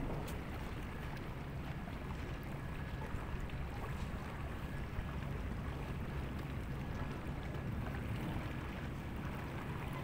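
Steady low rumble with a faint hiss above it: seaside ambience of wind and water.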